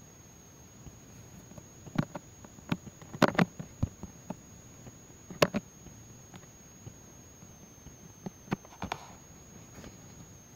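Fingertip taps and handling knocks on a tablet, heard close up: a handful of short sharp clicks at irregular intervals, clustered around two to three and a half seconds in and again near five and a half and nine seconds, over a low hiss.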